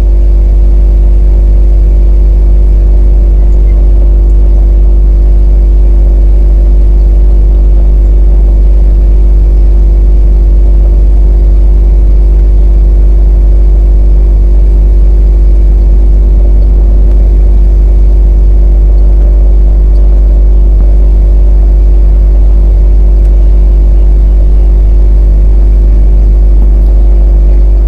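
Quadcopter drone's motors and propellers humming steadily in stable flight: a constant buzz that holds one pitch throughout, over a heavy low rumble.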